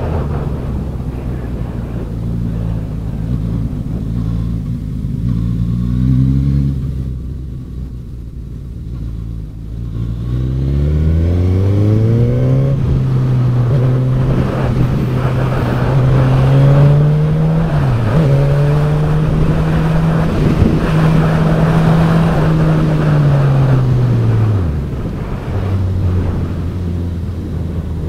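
Suzuki GSX-S1000F's inline-four engine under the rider, with wind rush: it pulls up through the revs about ten seconds in, holds steady with a brief dip in pitch midway, then rolls off near the end.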